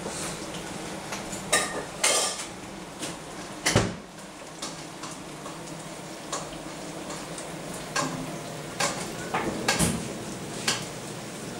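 Dishes and metal utensils clattering: scattered clinks and knocks, the loudest about four seconds in, over a steady background hiss.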